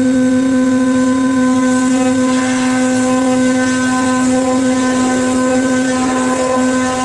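A 5-axis CNC machine running with a steady high hum and overtones. A rougher noise joins it from about two and a half to six seconds in.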